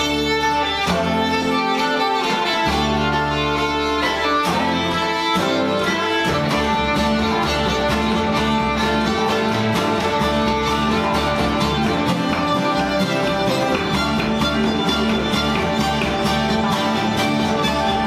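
Bluegrass band playing: fiddle over banjo, acoustic guitars and upright bass.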